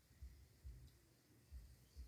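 Near silence, with only faint, uneven low rumbles.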